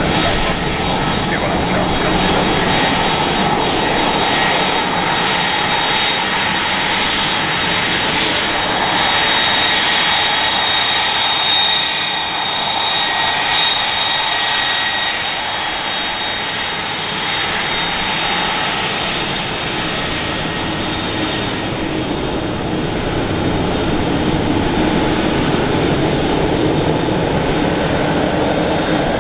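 Airbus A330-300 airliner taxiing, its twin jet engines running at low taxi power: a steady jet rush with a high whine over it.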